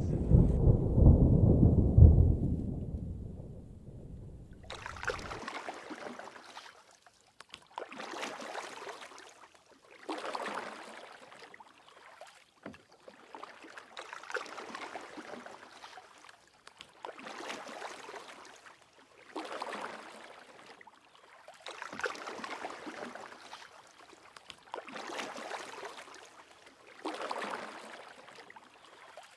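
Low rumble of thunder dying away over the first few seconds, then small waves lapping against a lake shore, a soft splashing swell about every two and a half seconds.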